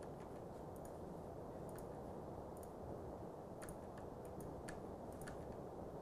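Faint, scattered clicks of a computer mouse and keyboard, a dozen or so short sharp clicks with more of them in the second half, over a steady low room hum.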